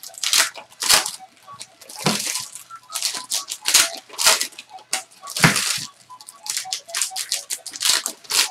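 Sports trading cards being handled: cards sliding and rustling against each other in quick, irregular strokes as they are flipped through.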